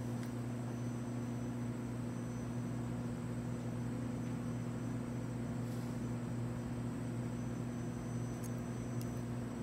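Steady low hum with a faint high-pitched whine above it, and a couple of faint ticks near the end.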